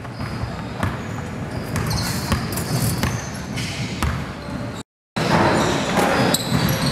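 Basketball ball bouncing on a hardwood gym floor, with rubber sneakers squeaking as players run and cut. The sound cuts out completely for a moment about five seconds in, then comes back louder.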